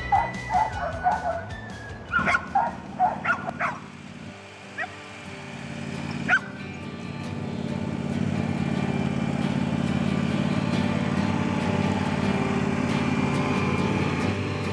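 Dogs barking and yipping in short bursts for the first few seconds. Then a riding lawn tractor's engine runs steadily, growing louder over a few seconds and holding level as it pulls the dog train past.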